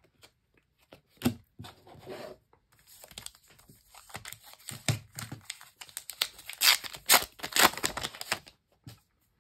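Foil wrapper of a Match Attax trading-card pack being handled and torn open: a sharp crinkling and tearing that grows from about three seconds in and is loudest in the last few seconds.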